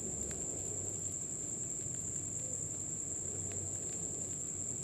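Faint scraping and light ticks of a spatula stirring frying vegetables in a non-stick kadhai, under a steady high-pitched whine.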